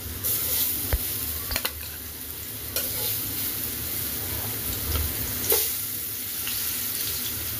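Jackfruit-seed patties sizzling steadily in shallow oil in a frying pan, with a few sharp taps and scrapes of a spatula against the pan.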